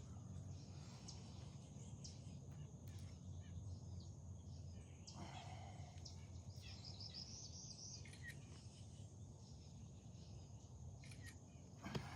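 Quiet outdoor background: a steady low rumble with faint bird chirps now and then.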